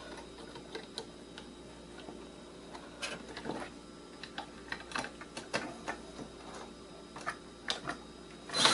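Scattered small clicks and taps of tools and loose metal parts being handled on a workbench, at irregular intervals, with one short louder burst near the end.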